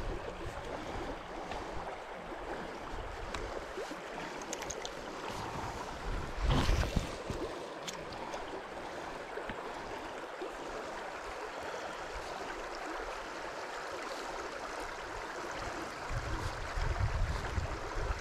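River water flowing over a shallow riffle, a steady hiss. Wind buffets the microphone briefly about six and a half seconds in, and a low wind rumble builds near the end.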